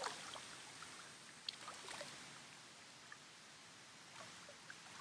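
Faint splashing and sloshing of shallow water as a large eel is lowered into it by hand, a few small splashes about one and a half to two seconds in, over a soft steady hiss of flowing water.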